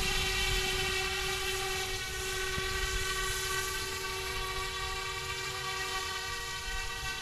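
YU XIANG F06 EC135 RC helicopter in flight: a steady, high electric whine from its motors and spinning rotors, several pitches at once, wavering slightly as it manoeuvres and growing a little fainter near the end as it moves farther off.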